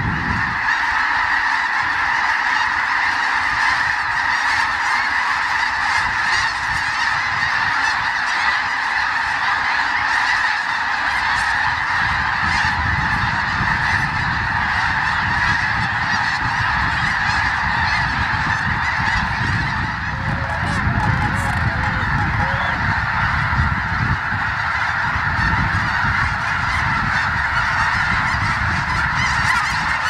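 A huge flock of snow geese calling all at once as it takes off and wheels overhead, a dense, unbroken din of high honks. A low rumble runs underneath from about a third of the way in.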